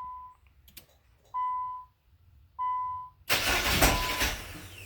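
A car's warning chime beeps steadily, about once every second and a quarter. About three seconds in, the 2000 Nissan Maxima's starter cranks the engine for about a second without it catching. This is the hard-start fault: the engine cranks but won't fire.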